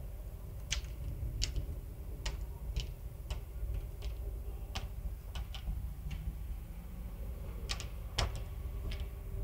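A series of sharp, irregularly spaced clicks or taps, roughly one or two a second, over a steady low rumble.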